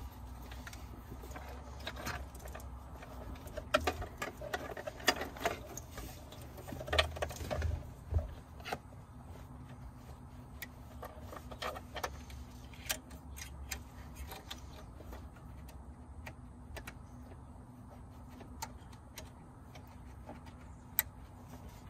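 Plastic wiring-harness connectors and cables being handled and plugged into the back of a car's head unit: scattered clicks and rattles, denser in the first half, over a low steady hum.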